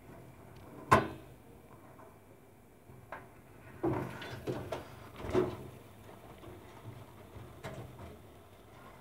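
Handling knocks: one sharp, loud knock about a second in, then several softer bumps and short rustles.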